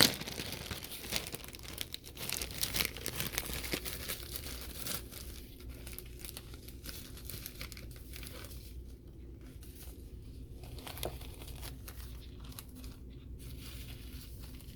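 Crinkling and rustling of the bird hand-feeding formula's packaging as it is handled, dense for the first few seconds, then sparser and quieter.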